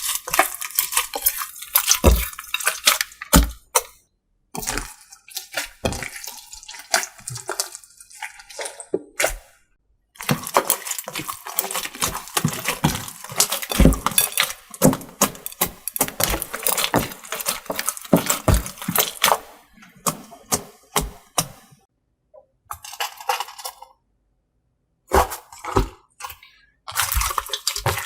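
Slime being squeezed, stretched and pressed by hand: wet, sticky clicks, pops and crackles in quick bouts, broken by a few short silences.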